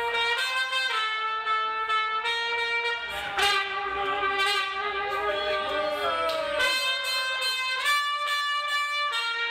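Trumpet played live, a melody of long held notes with a few slides between them.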